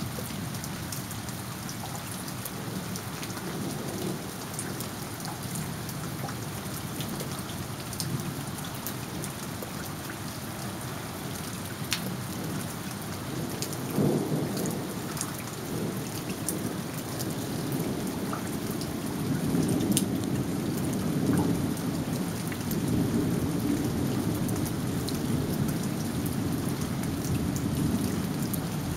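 Thunderstorm: steady rain with scattered sharp drop ticks close by, and low rolling thunder that builds from about halfway and is loudest over the last third.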